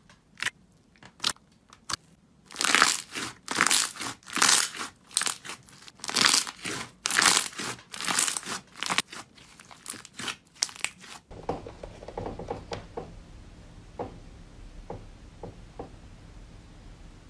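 Slime worked by hand: a few sharp pops as it is poked, then from about two and a half seconds in a dense run of loud crackling and crinkling as a mass of blue slime is squeezed between both hands. At about eleven seconds it cuts to a much quieter stretch with a low hum and a few faint pops.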